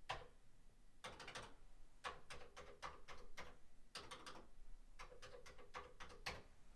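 Keystrokes on a Commodore 64 keyboard: faint clicking in short runs of several keys, with brief pauses between the runs.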